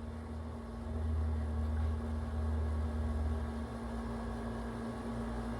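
Low steady rumble with a constant hum, the rumble swelling louder between about one and three and a half seconds in.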